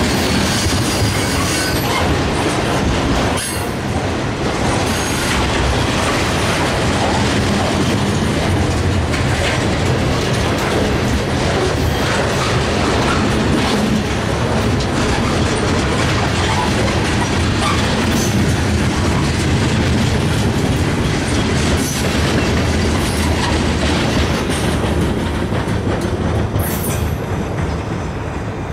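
Freight train cars rolling past at close range: a steady rumble of wheels on rail, with clicks as wheels cross rail joints and a thin high squeal near the start. It eases off near the end as the train goes by.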